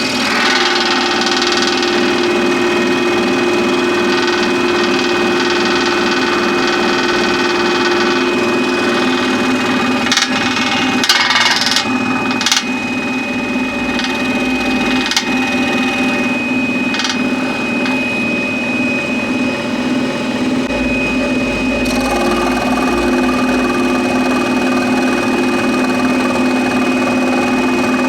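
Scroll saw running steadily, its reciprocating blade cutting a 40 mm thick pine board, with a few sharp knocks about ten to thirteen seconds in.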